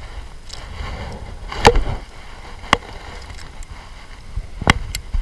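Low wind rumble on the microphone with a few sharp knocks and clicks, the loudest about a second and a half in, as an angler handles a baitcasting rod and reel in an aluminium jon boat.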